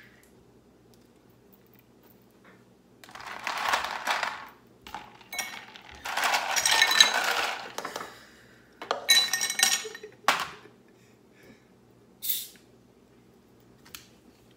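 Ice cubes dropped into drinking glasses, clattering and clinking in three bursts. Near the end, a short hiss as a plastic Coca-Cola bottle's cap is twisted open and the carbonation escapes.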